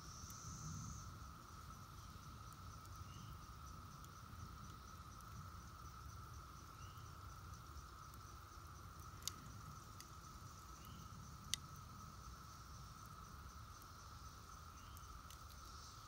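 Faint steady drone of a distant Brood X periodical cicada chorus (17-year cicadas). Two sharp ticks come about two seconds apart a little past the middle.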